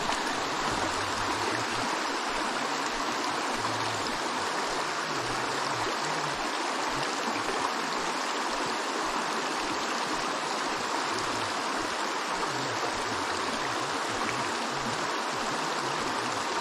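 Shallow rocky creek running over stones: a steady rush of flowing water.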